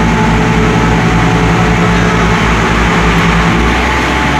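Daewoo diesel multiple-unit train pulling out past the platform, its underfloor diesel engine giving a loud, steady low drone as the cars roll by close up. About three and a half seconds in the engine note changes and its lowest part drops away as one car moves on and the next comes alongside.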